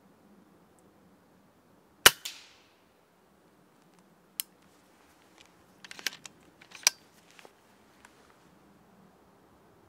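An air rifle shot at a squirrel on the feeder about two seconds in: one sharp crack, closely followed by a second smaller knock. Lighter clicks and knocks follow a couple of seconds later and again around six to seven seconds in.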